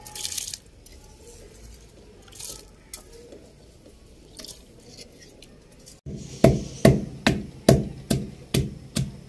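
Wooden pestle pounding in a mortar, steady heavy thuds about two to three a second, crushing ginger and garlic into paste. It starts about two-thirds of the way in; before that only a few soft splashes as rice is tipped into a pot of water.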